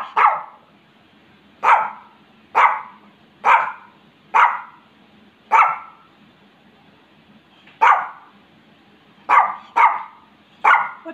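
Small dog barking repeatedly up at its owner, about eleven sharp barks at irregular intervals, some in quick pairs, with a pause of about two seconds midway. These are demand barks for a toy.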